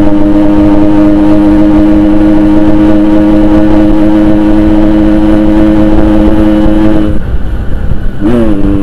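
Yamaha RX-King 135cc two-stroke single running through a Boban aftermarket exhaust, held at high revs with a steady pitch while riding at speed. About seven seconds in, the revs drop off, and near the end the pitch briefly swings down and back up, as with a gear change.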